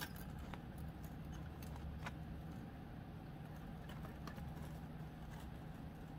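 Faint scattered clicks and light ticking of thin 22-gauge wire against a metal hoop as the wire is pulled through and twisted by hand, over a steady low hum.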